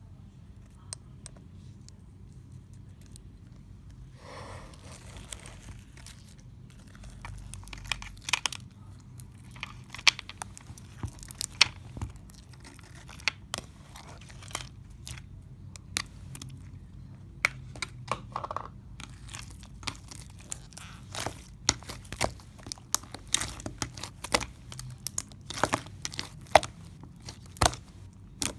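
Close-up crackling and crinkling handling sounds, sharp snaps and crunches that come sparsely at first and then quickly, over a low steady hum.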